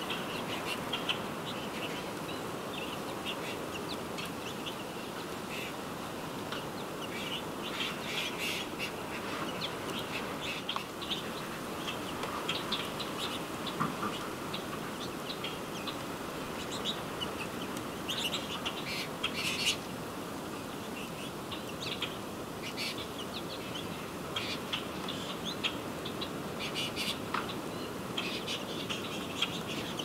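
Small feeder birds, mostly American goldfinches, chirping and twittering in short scattered bursts over a steady background hiss.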